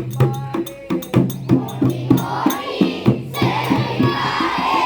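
Gujarati children's song: music with a quick, steady beat of light percussion over a bass line. Voices singing come in about two seconds in.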